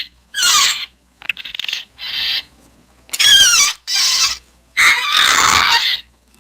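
Baby-monster creature sound effect: a string of about six short, high-pitched squeaks and squeals with gliding pitch, one of them raspy, separated by brief gaps, the last and longest lasting about a second.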